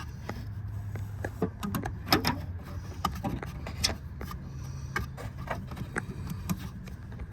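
Irregular clicks, knocks and scrapes of a hood release cable and its pull string being worked through the car's firewall, over a steady low hum.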